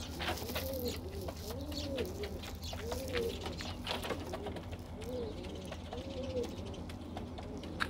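Domestic pigeons cooing, several birds at once, each coo a rising-then-falling call, repeated and overlapping. Scattered short clicks and a steady low hum lie underneath.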